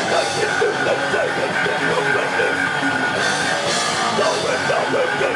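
A thrash metal band playing loud and live, guitars and drum kit with crashing cymbals.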